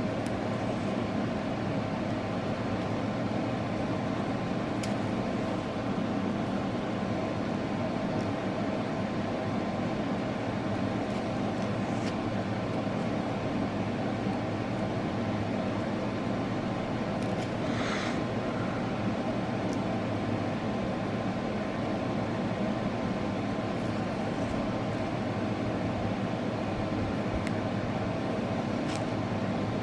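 A steady mechanical hum at a constant level, with a few faint clicks and a brief scratchy rustle a little past the middle.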